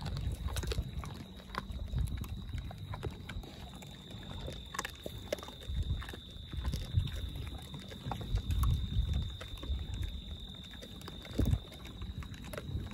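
Collared peccaries feeding close to the microphone: irregular low snuffling from their snouts and scattered clicks of chewing, with a faint steady high tone behind.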